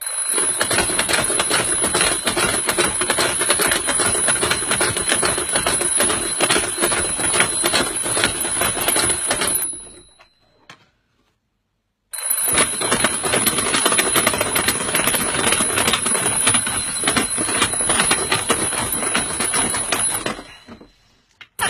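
Alarm clock ringing with a fast, continuous rattling ring in two long stretches. The first dies away about ten seconds in. After a gap of about two seconds it starts again abruptly, then fades out near the end.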